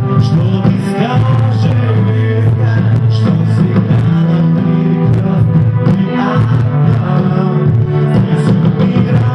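A band performing a pop song, with singing over a steady bass line.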